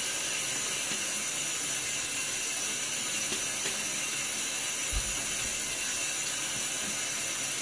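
Bathroom tap running steadily into the sink, a smooth hiss of water for cool face-splashing before a shave, with a single low knock about five seconds in.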